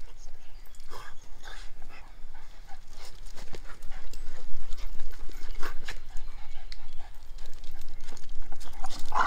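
Boston Terriers playing together, making short, irregular dog sounds in quick succession.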